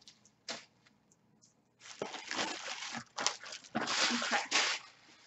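Packaging rustling and crinkling as items are handled in a cardboard box: a short knock about half a second in, then two stretches of rustling in the second half.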